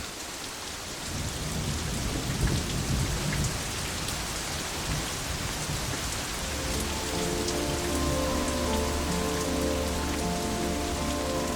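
Heavy rainfall, a dense steady hiss of drops, with a low rumble of thunder in the first few seconds.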